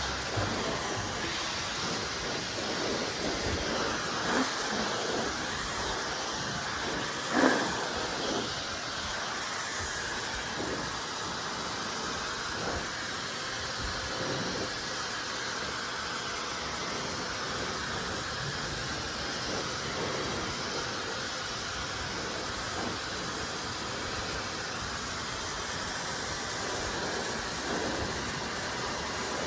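Dyson Supersonic hair dryer blowing steadily: a constant rushing hiss of air, with a brief louder bump about seven seconds in.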